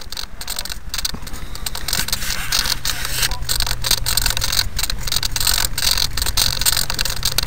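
Radio-controlled Talon model plane in flight, picked up by a keychain camera strapped to its tail: a steady motor-and-propeller drone buried in rushing wind and crackling buffeting on the microphone, growing louder over the first couple of seconds.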